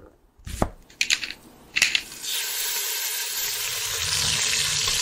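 Intro sound effects: a few sharp clicks and knocks, then from about two seconds in a steady, even hiss.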